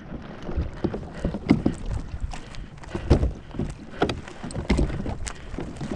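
Small waves slapping irregularly against a plastic sit-on-top kayak hull, with wind buffeting the microphone.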